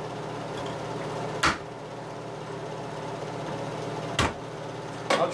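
Two sharp strikes, a little under three seconds apart, of a blade being punched into the lid of a tin can to open it, over the steady hum of a kitchen fan.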